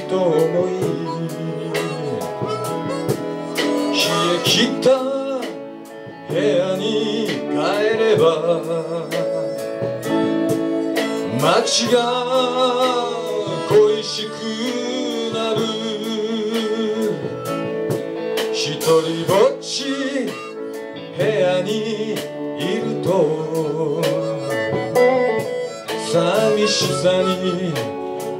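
A live band playing a folk-rock song: electric guitars, bass guitar and drums, with a harmonica carrying a bending, wavering melody line.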